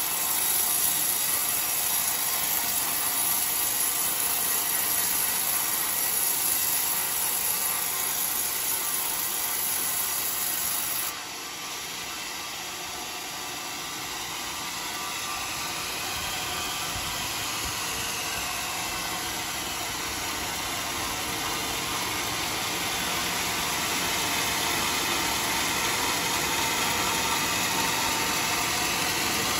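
Homemade sawmill cutting lengthwise through a coconut-palm log, a steady mechanical running with a bright hiss from the blade in the wood. About eleven seconds in the hiss cuts off abruptly and the machine keeps running, growing slowly louder.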